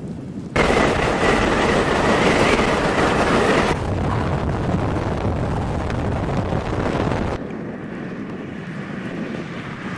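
Strong storm wind rushing over the microphone: a loud, even roar that starts abruptly about half a second in, eases a little near four seconds and drops again near seven and a half seconds.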